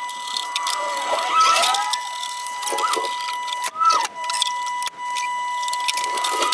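Metal clamps clattering and clicking as they are fitted and tightened onto a battened oak cabinet panel. A steady high-pitched tone runs under it almost the whole time.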